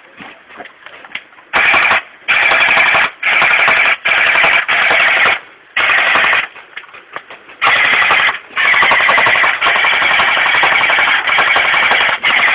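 Airsoft rifle firing on full auto in repeated bursts, starting about one and a half seconds in: several short bursts, then a longer one lasting a few seconds near the end.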